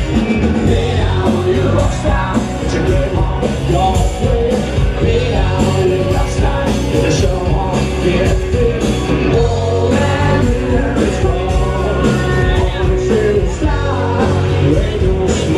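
Loud rock music with a singing voice over a heavy, steady bass.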